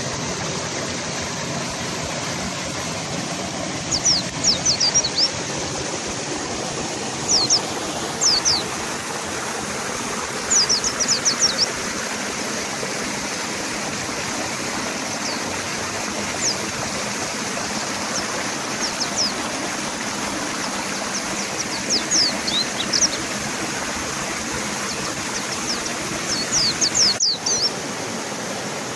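Steady rush of river water, with a mountain white-eye calling over it in short clusters of quick, high, downward-sweeping chirps every few seconds.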